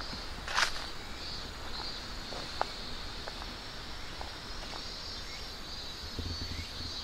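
A steady, high-pitched chorus of insects, with a short rustle about half a second in and a few faint ticks.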